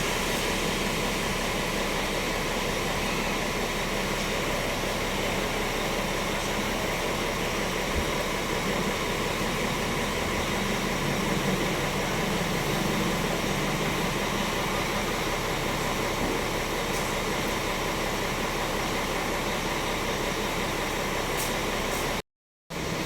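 Bus engine idling, a steady unchanging running noise, which drops out briefly near the end.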